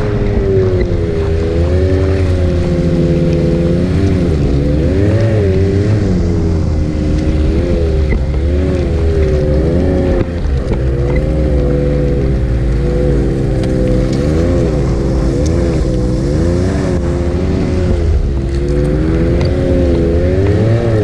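Ski-Doo Expedition 900 ACE Turbo snowmobile's three-cylinder engine running under way, its pitch rising and falling again and again as the throttle is worked, over a steady deep drone.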